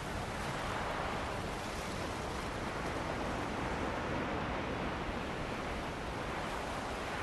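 Ocean waves washing ashore in a steady rush of surf, with wind blowing across the microphone; the wash swells gently about a second in.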